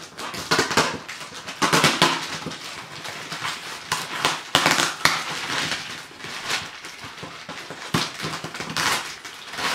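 Paper envelope and papers rustling and crinkling as they are handled and pulled open, in irregular bursts with a few sharp clicks.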